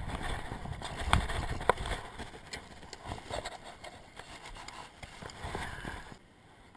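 Rumbling wind and handling noise on a head-mounted camera as the angler's arm and clothing brush against it, with a couple of sharp clicks in the first two seconds. The noise fades and drops away about six seconds in.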